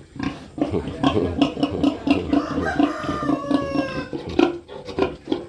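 A rooster crows once, a drawn-out call falling in pitch, about halfway through. Under it, pigs give low grunts repeating about three times a second.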